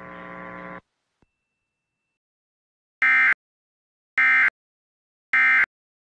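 A steady buzzing hum cuts off just under a second in. After a faint click come three short, loud screeching data bursts about a second apart. These are the Emergency Alert System's End of Message (EOM) SAME digital tones, which signal that the alert is over.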